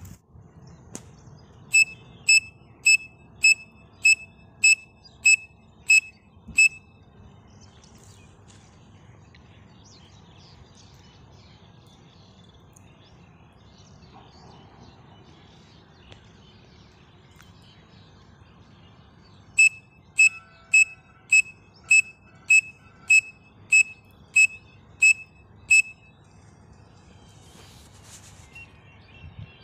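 Pen cap blown as a whistle to imitate the call of a grey francolin (teetar): two runs of short, shrill, evenly spaced whistle notes, about two a second. The first run starts a couple of seconds in and the second comes after a long pause.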